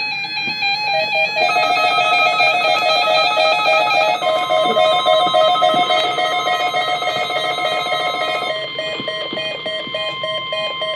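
Guitar music with notes stepping up and down. About four seconds in, a single steady tone joins it and holds: the 1050 Hz NOAA Weather Radio warning alarm tone, sounded for a required weekly test.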